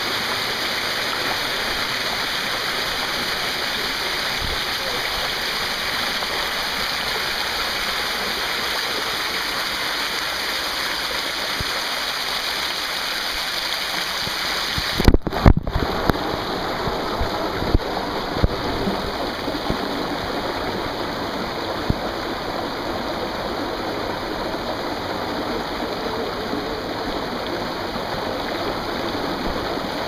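Waterfall pouring close in front of the camera, a steady rush of falling water. About halfway through come a few sharp knocks.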